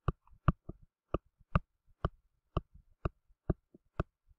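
Stylus tip tapping and clicking on a tablet screen while handwriting: about a dozen short, sharp clicks at uneven intervals, two or three a second.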